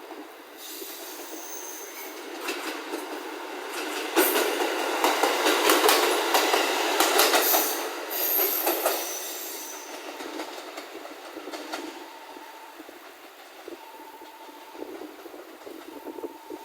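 A train passing close by, building up, then running loudest for several seconds with rapid clickety-clack of wheels over rail joints and brief high wheel squeals, then fading away.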